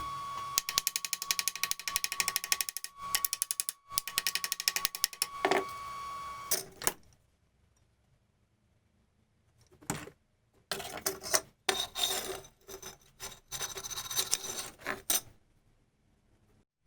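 A mechanism clicking fast and evenly, about ten clicks a second, over a steady hum, with a short break partway through; it stops about six seconds in. After a pause come several seconds of irregular metallic clattering.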